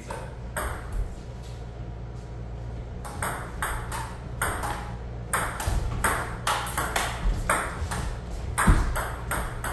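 Table tennis rally: the ball clicking off the paddles and bouncing on the table in a quick back-and-forth of sharp taps, a little quieter for a stretch in the middle and with a louder hit near the end.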